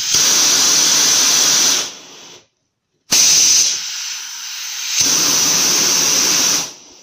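Compressed air hissing at a hand-operated pneumatic valve as it cycles a double-acting pneumatic cylinder. There are two long hisses, about two seconds and then about three and a half seconds, with a short silence between. A flow restrictor on one side makes the cylinder retract more slowly than it extends.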